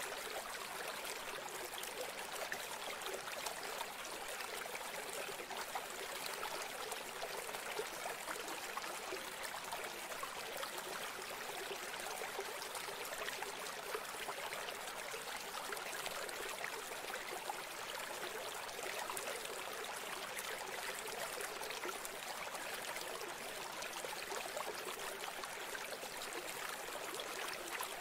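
River water trickling and rushing along the hull of a wooden country boat: a steady, fine crackling hiss.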